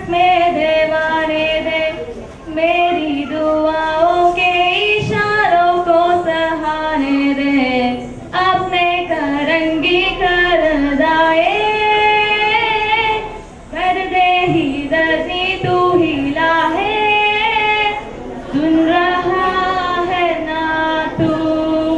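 A teenage girl singing solo into a microphone, with no accompaniment heard. She sings in long held phrases, breaking briefly for breath every four to six seconds.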